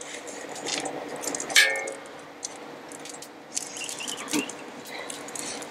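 Oil sizzling and crackling on a hot griddle plate while it is wiped with a paper towel held in metal tongs, to season it. A single sharp metal clink about one and a half seconds in.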